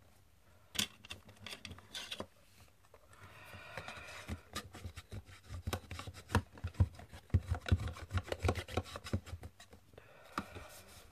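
Small folded white cardboard boxes being handled and pressed together as they are glued into a row: cardboard rubbing against cardboard, then a run of light taps and knocks. Near the end a bone folder is pushed down into one of the boxes.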